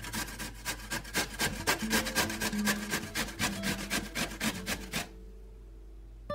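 Zucchini being grated on the coarse side of a stainless steel box grater: quick rasping strokes, several a second, that stop about five seconds in.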